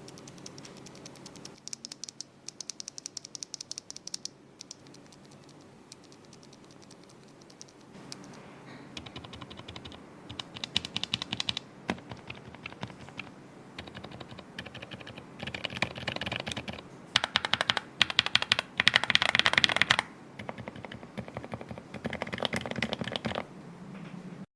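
Mechanical keyboard with Gateron KS-3X1 Milky Pro switches being typed on: rapid keystroke clicks in several bursts with short pauses between, the loudest bursts in the second half.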